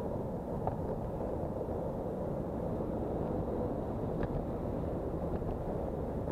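Wind rushing over the microphone of a bicycle-mounted camera while riding, mixed with the steady rumble of road traffic, with a couple of faint ticks.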